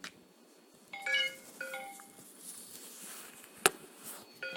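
Short electronic chime notes, two in quick succession about a second in and another near the end, as an iPhone is connected to a computer. There is a single sharp click shortly before the last chime.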